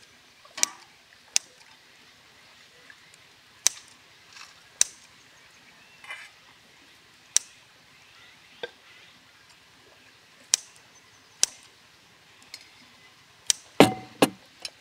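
Sharp clicks and clinks of metal utensils against stainless bowls and dishes, coming singly every second or few. Near the end a quick cluster of louder clinks with a brief ring as a ladle knocks against a stainless steel bowl.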